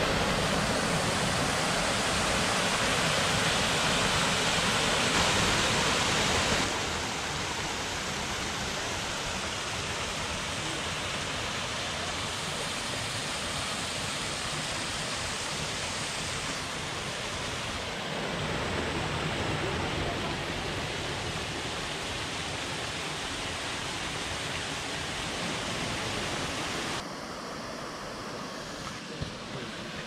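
Small forest waterfall cascades pouring into a pool: a steady rush of falling water that changes abruptly in loudness a few times and is quieter near the end.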